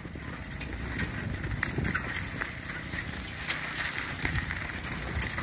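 Bicycle being ridden over a rough, potholed gravel road: tyres rumbling and crunching on the loose gravel, with irregular small knocks and rattles as it jolts over the bumps.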